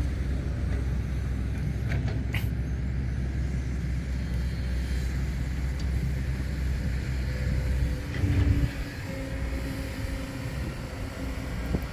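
Steady low rumble of a truck driving, engine and road noise together, with a brief hiss about two seconds in and a short loud surge about eight and a half seconds in, after which the rumble eases.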